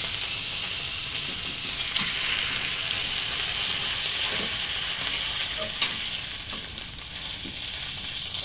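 Steak frying in a pan, a steady sizzle, with a few light clicks.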